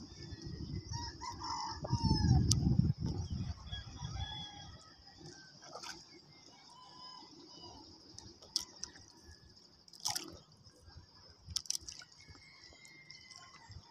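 A rooster crowing from the shore in the first few seconds, over a steady high hiss. About two seconds in comes a louder low rumble of wind and water, and a few sharp clicks follow later.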